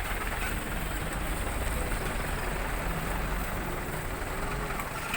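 Heavy diesel engine running steadily: a deep low rumble with a noisy hiss over it and no change in level.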